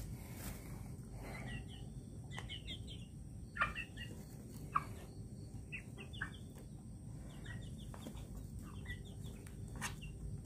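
Young chickens calling as they feed at a grain trough: quick runs of short, high chirps, repeated in several clusters, with a couple of louder calls about four and five seconds in. A few sharp ticks sound among the calls.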